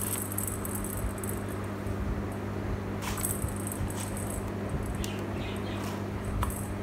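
The plastic ball of a cat track toy rattling and jingling in short spells as a kitten bats it around the plastic ring, a few times, over a steady low hum.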